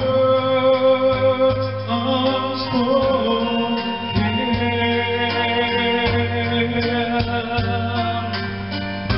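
A man singing a love song into a handheld microphone over recorded instrumental accompaniment with a steady bass.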